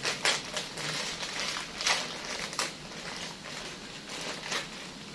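A plastic bag of dry pasta crinkling as it is tipped and emptied into a pot, with a few sharp clicks scattered through.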